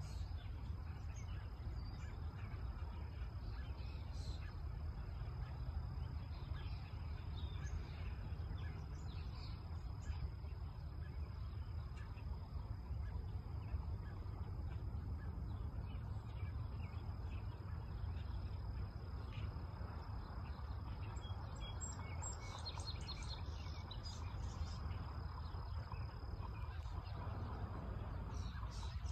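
Wind rumbling on the microphone in open farmland, with scattered bird chirps that come thicker in the last few seconds and a thin steady high tone throughout.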